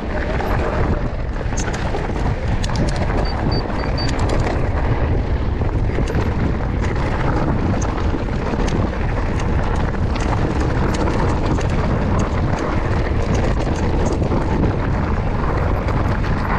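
Mountain bike being ridden down a rough trail: a loud, steady wind rumble on the camera's microphone, with many short clicks and rattles from the bike and tyres over the ground.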